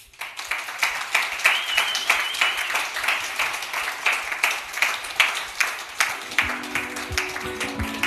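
Audience applauding, with a brief high-pitched tone over the clapping about a second and a half in. Near the end, music comes in under the applause.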